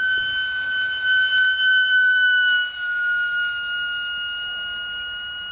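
Micro RC electric ducted-fan jet at full throttle: a loud, steady, high-pitched scream. The pitch drops slightly a little past halfway, and then the sound slowly fades.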